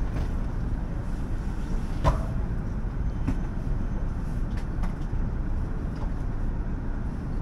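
JR East E5 Shinkansen train arriving into the station, a steady low rumble with a sharp click about two seconds in and a few fainter clicks after.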